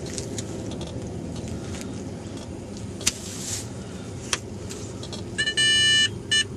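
Metal detector giving its target tone over a freshly dug hole, a run of loud electronic beeps starting about five seconds in, which signals that the target is still down in the hole. Under it runs a steady low rumble, with a couple of faint knocks earlier on.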